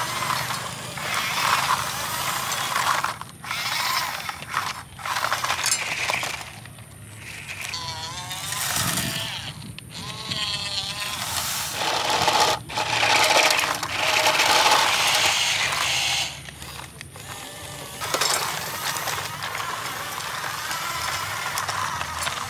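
Small stones and grit rattling and sliding in the plastic tipper bed of a Huina RC dump truck as the bed tips and unloads. The rattling comes in uneven stretches with short breaks.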